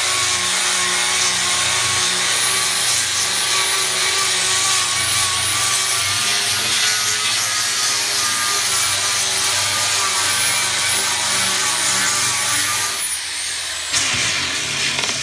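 Electric orbital sander running steadily against the face of an oak bourbon barrel head, a loud sanding hiss with a high whine. About two seconds before the end the whine falls in pitch and dies away as the sander spins down, with a sharp click.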